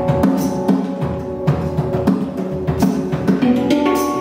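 Handpan played by hand: struck steel notes ringing and overlapping, with low thumps and sharp hits among them and a fresh chord of notes ringing out near the end.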